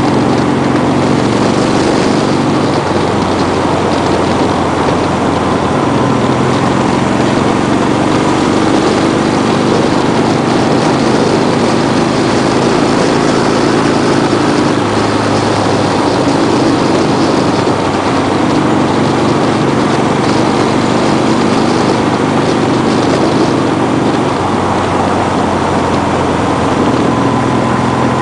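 Vehicle engine running steadily while driving along a road, its note wavering slightly with speed, under a constant rush of wind and road noise.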